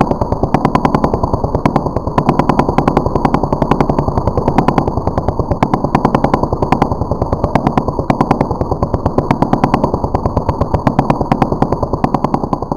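PAW 049 Mk1 model diesel engine (a tiny compression-ignition glow-free motor) running on the bench, its sound slowed down so that each firing stroke is heard as a separate sharp pop in a fast, even string.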